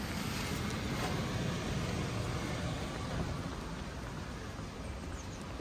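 Steady city street noise: a broad hiss with a low rumble, as of traffic.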